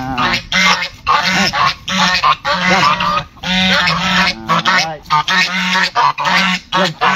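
Several domestic geese honking loudly, one call after another with barely a break.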